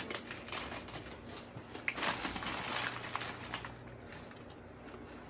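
Gift wrapping paper rustling and crinkling as a present is handled and unwrapped, densest in the middle and dying down near the end.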